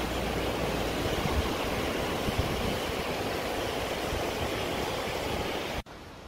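Steady rushing of a shallow, rocky stream, with a low rumble underneath; it cuts off suddenly near the end.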